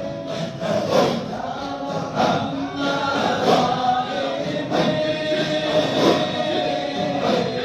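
A group of voices chanting together in long held notes that rise and fall, the kind of group recitation heard in a mosque.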